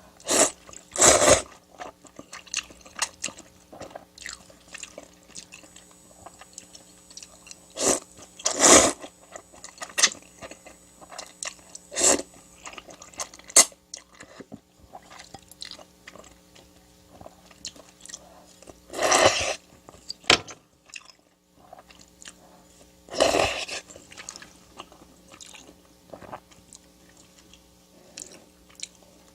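Close-miked eating: steady chewing with many small wet mouth clicks, broken by five louder bites of about a second each.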